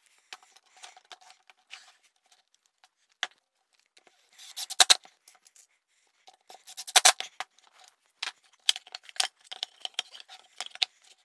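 One-handed bar clamp being tightened onto a plywood jig: two quick runs of ratcheting clicks from its trigger a couple of seconds apart, among lighter clicks and wooden knocks as the boards are handled.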